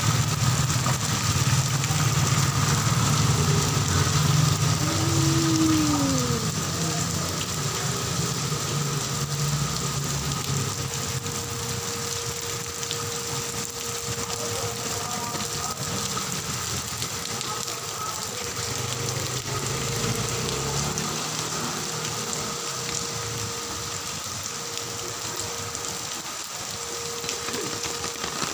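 Heavy rain falling steadily. A motor vehicle's engine runs under it for the first several seconds, and again briefly around twenty seconds in.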